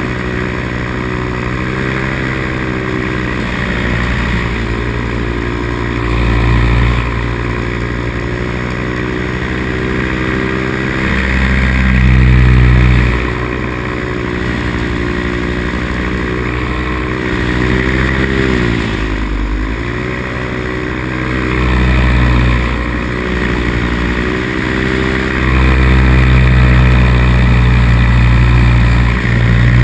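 Two-stroke paramotor engine and propeller running in flight, heard from a helmet-mounted camera. The drone swells louder several times, and its pitch dips briefly about two-thirds of the way through, then comes back up.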